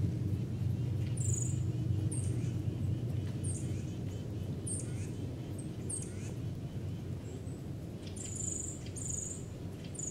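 Small birds giving short, very high, thin call notes, each dropping slightly in pitch, about one a second, over a steady low rumble.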